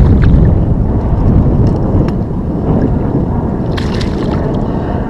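Wind noise on the microphone over a hooked largemouth bass splashing and thrashing in shallow water at the shoreline, with a few short splashes, the clearest about four seconds in.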